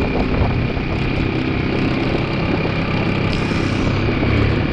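2002 Yamaha 225's engine running steadily, being checked for a clunking noise that the owner puts down to something in the clutch.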